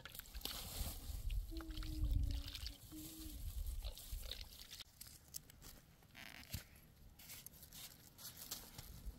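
Wind rumbling on the microphone, with small clicks and scrapes of a knife cutting fresh vegetables by hand. A short faint voice-like tone sounds about two seconds in.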